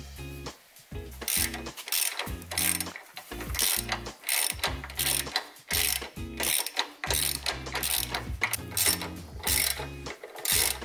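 Socket ratchet clicking in quick repeated back-swings, about two strokes a second, as a bolt is tightened with a wrench holding the nut. The clicking starts about a second in.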